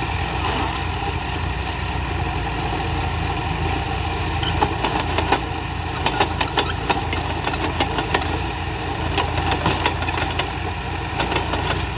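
Heavy diesel engine of earth-moving machinery idling steadily, with a run of short sharp knocks over its second half.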